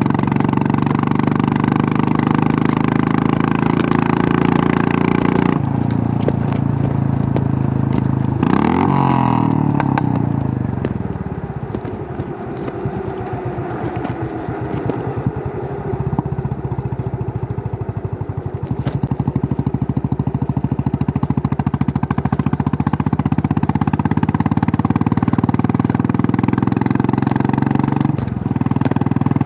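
Royal Enfield Classic 350 single-cylinder engine under way: a steady riding note, then the pitch falls about nine seconds in as the bike slows, followed by several seconds of slow, even low-rev thumping before the engine picks up again. Near the end there is a brief dip and change in pitch, as at a gear change.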